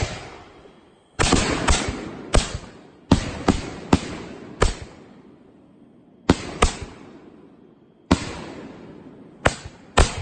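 Consumer firework aerial shells fired one after another from a rack: about a dozen sharp bangs as the shells lift and burst, each dying away in a short echo, with brief lulls between groups.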